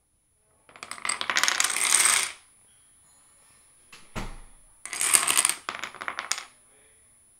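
Dominoes and wooden Jenga-style blocks toppling in a chain and clattering on a hardwood floor: two runs of rapid clicks, each about a second and a half long, with a single thump between them.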